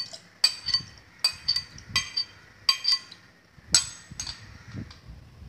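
Steel ladle clinking against a wire-mesh strainer and the rim of a steel mixer jar while the shake mixture is ladled and strained: about a dozen sharp, ringing metal clinks at uneven intervals.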